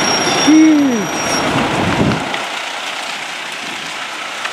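Heavy diesel dump truck driving away and turning, its engine rumble fading out about two seconds in, leaving a thinner traffic hiss. A short rising-then-falling tone about half a second in is the loudest moment.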